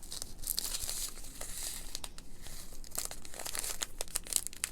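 Clear plastic bags of diamond painting drills crinkling and crackling as they are handled, with many small clicks and rustles.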